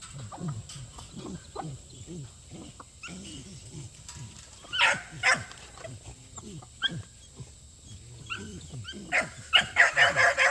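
Dogs making low, short growling grunts again and again, with a couple of barks about halfway and a quick run of loud barks near the end.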